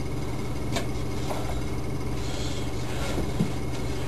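A steady low hum of background or recording noise, with a faint click about a second in and a soft knock near the end.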